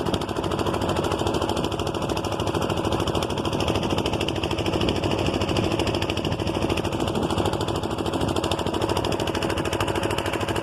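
A fishing boat's engine running steadily, with a rapid, even pulse.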